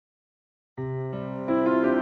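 Background music of sustained keyboard-like notes, starting from silence just under a second in and growing louder about a second and a half in.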